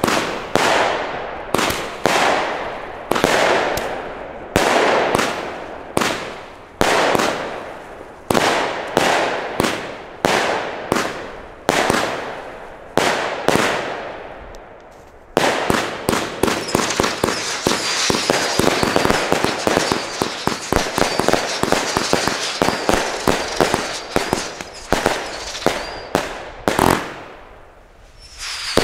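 Firework battery, Albert's Barbie's Boy (48 shots of 20 and 24 mm), firing: single shots with their bursts about once a second for the first half, then a dense crackling run with a high whistle through it, ending in a last bang and a brief lull.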